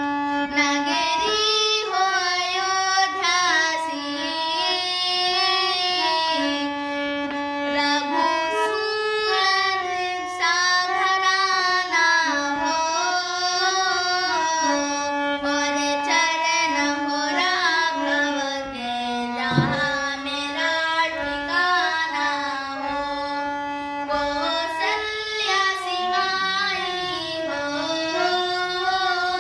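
A high solo voice singing a devotional bhajan to Lord Ram, holding long notes and sliding and ornamenting between pitches.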